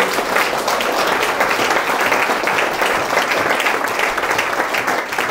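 Audience applauding, many hands clapping steadily, easing off near the end.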